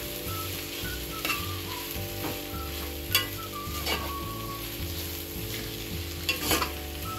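A metal spoon stirring and scraping vegetables and grated potato in a steel pot over a lit flame, with a light sizzle and a few sharp clinks of the spoon against the pot.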